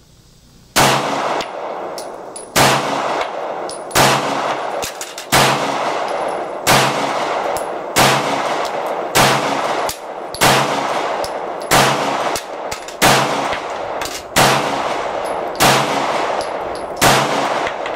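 Glock 19 9mm pistol firing a steady string of single shots, thirteen of them at about one every 1.3 seconds, each shot leaving a short ringing echo.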